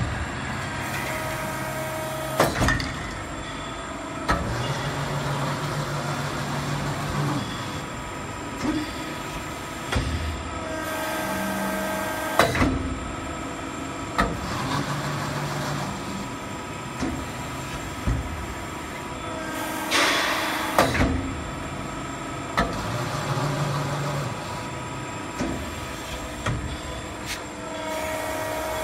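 A 63-ton CNC hydraulic press brake running: a steady machine hum, with held whining tones and sharp clunks that recur in a repeating cycle. About two-thirds of the way through comes a harsher burst about a second long.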